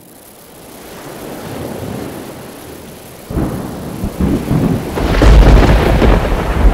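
Thunderstorm: a rain-like hiss fading in, then rolling thunder from about three seconds in, growing louder and heavier toward the end.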